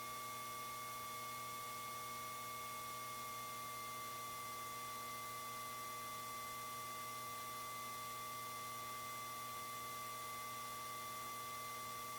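Steady electrical hiss with a constant whine of several thin tones on a Cessna 172's intercom audio feed between radio calls. One tone drifts slightly lower about three seconds in.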